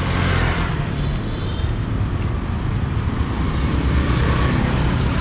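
Street traffic ambience: a steady rumble of passing motor vehicles.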